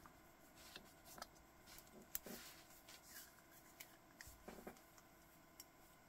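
Faint rustling and a few small clicks of a sailcloth watch strap and its deployant clasp being handled on the wrist.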